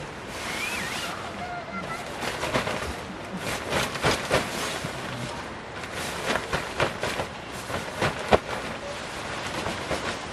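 Wood campfire crackling with irregular sharp pops over a steady hiss of heavy rain.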